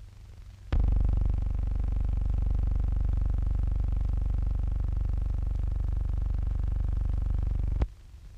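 A loud, steady low hum with many overtones that starts suddenly with a click just under a second in and cuts off with a click near the end.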